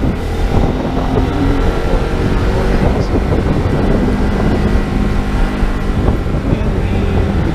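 Motorcycle engine running while riding, with wind noise on the microphone; the engine note shifts up and down a few times as the speed changes.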